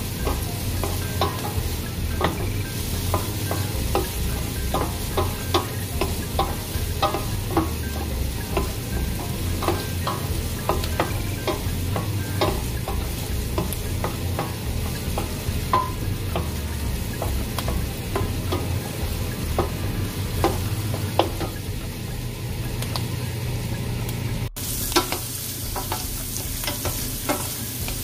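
Diced onions sizzling in oil in a stainless steel pan while being stirred with a wooden spatula, with frequent light clicks and scrapes of the spatula against the pan. The sound breaks off briefly about three-quarters of the way through and comes back with a brighter sizzle.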